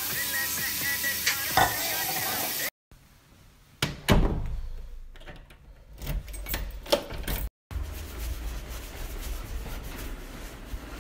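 Bathroom tap running into a sink, cut off abruptly. Then a door thudding shut with a fading tail, a few knocks, and a steady low rumble.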